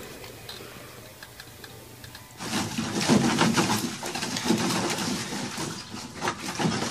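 A dog splashing about in a shallow plastic paddling pool, water sloshing in dense, irregular splashes that start abruptly about two and a half seconds in after a quieter stretch.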